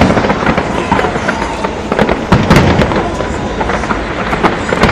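Large fireworks display: dense, continuous crackling and popping of bursting shells, with a heavier boom about two and a half seconds in.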